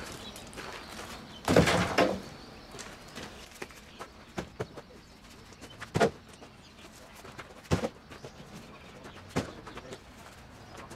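Broken chunks of old concrete path being tossed onto a trailer load of concrete slabs. There is a loud crash of concrete on concrete about one and a half seconds in, then three sharp knocks spaced nearly two seconds apart, with small clinks of rubble being gathered up between them.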